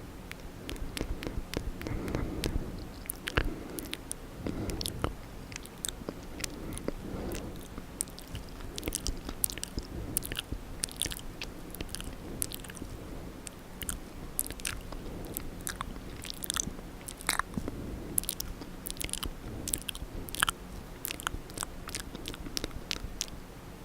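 Wet ASMR mouth sounds close to the microphone: a dense, irregular run of sharp, smacking clicks from lips and tongue.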